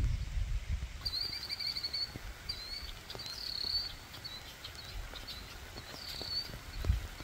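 Steady rain falling on a marsh pond, with a songbird singing repeated high chirping phrases from about a second in. Wind rumbles on the microphone in the first second, and there is a low thump near the end.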